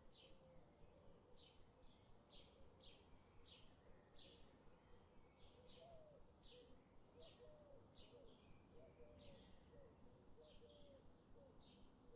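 Faint birdsong from a stock nature recording: short, high chirps repeating about twice a second, over lower, softer curling calls.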